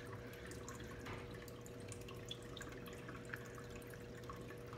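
Faint, light dripping water over a steady low hum, with many small scattered ticks.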